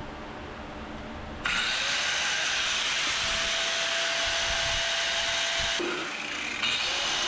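Handheld electric power tool switched on about a second and a half in: its motor spins up to a steady whine under a loud grinding noise for about four seconds. It winds down, then is started again near the end.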